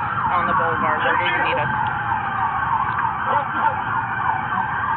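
Emergency-vehicle siren in a fast yelp, its pitch sweeping up and down several times a second, heard from inside a moving car over low road rumble. Faint radio voices come in during the first second or so.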